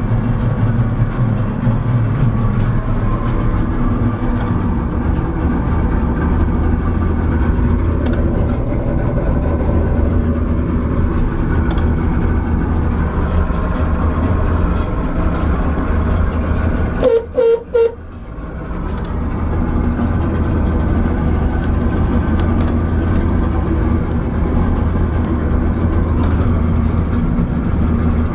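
Johnson 200 hp two-stroke outboard motor running steadily at idle just after starting. About two-thirds of the way through, three short toots sound in quick succession.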